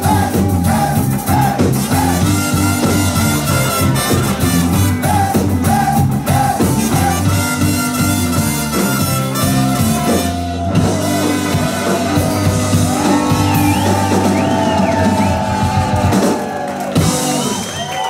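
Live ska band playing: trumpets, saxophone, electric guitar, bass and drum kit with singing, in a loud club mix. About ten and a half seconds in the band drops out for a moment, and near the end the song winds down as voices from the crowd come through.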